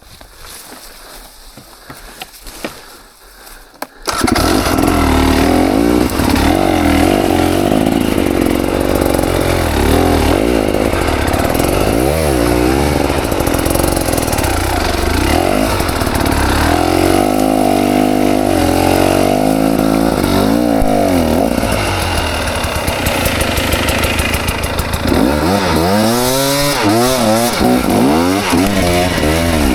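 KTM 300 XC two-stroke dirt bike engine, which comes in suddenly and loud about four seconds in, then runs and revs up and down repeatedly as the bike is ridden.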